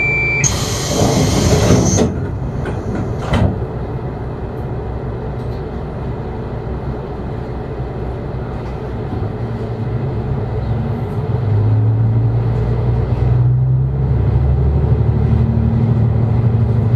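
KiHa 125-400 diesel railcar of the Umisachi Yamasachi train heard from its front end. A loud hiss comes about half a second in and a click a few seconds later. The diesel engine then runs quietly until, from about eleven seconds, it revs up into a louder drone as the train pulls away from the station.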